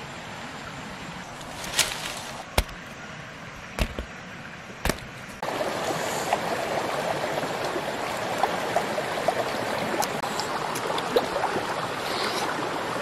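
Outdoor ambience with a few sharp clicks, then, about five seconds in, the sound cuts suddenly to the steady rush of running stream water with faint crackles.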